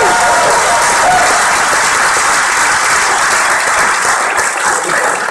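Audience applauding loudly, with a few voices whooping in the first second or so.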